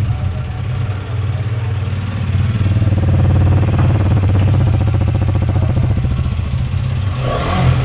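Hero Karizma XMR 210's single-cylinder engine idling just after starting, a little louder from about two and a half seconds in. It runs evenly, "not bad, fine", its cylinder 1 misfire cured by a new ignition coil and spark plug.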